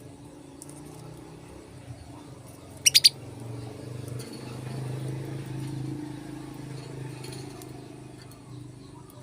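Male canary giving three quick, sharp chirps in a row about three seconds in, over a low background rumble that swells and fades.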